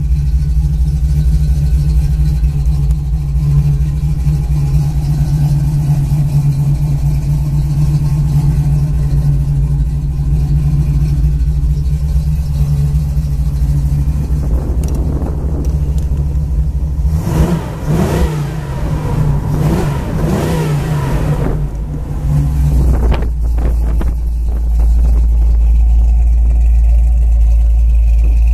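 1981 Chevrolet Camaro Z/28's rebuilt V8, fitted with a 3/4 race cam, idling steadily. It is revved several times about two-thirds of the way through, its pitch rising and falling, then settles back to idle.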